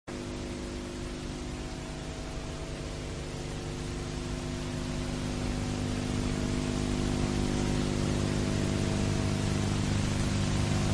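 Steady hiss under a low droning hum made of several held tones, slowly growing louder.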